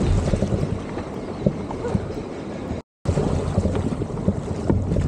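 Wind buffeting the microphone of a camera on a tandem surfski, over the splash and slap of water and paddle strokes against the hull. The sound cuts out for a moment just before three seconds in, then resumes.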